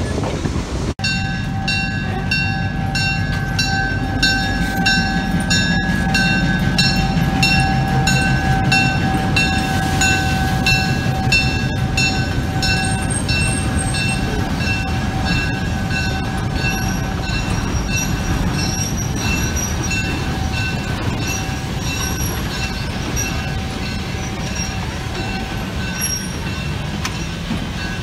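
Freight cars rolling slowly past on the rails: a steady low rumble with regular clicks of the wheels over the rail joints and a high, steady wheel squeal that begins about a second in and fades near the end.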